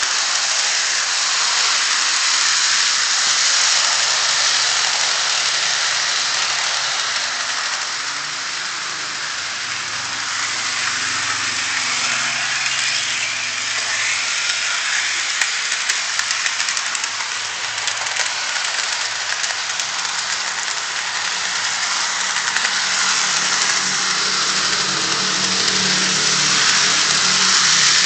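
Model train running on its track: a Liliput BR52 locomotive's small electric motor and gearing whirring steadily, with the wheels rattling over the rails and a few clicks.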